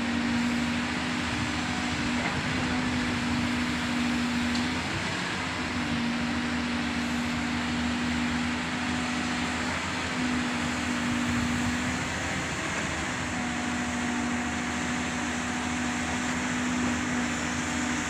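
Doosan DX225 tracked excavator's diesel engine running under load as it digs into an earth bank. A steady droning tone breaks off briefly and comes back several times.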